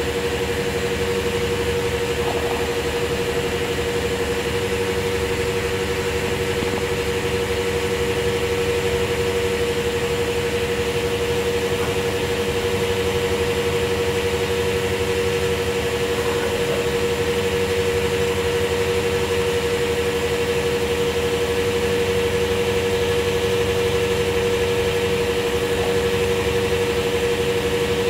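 Fuel dispenser pump humming steadily during refuelling, a constant pitched drone over a low rumble and a faint hiss.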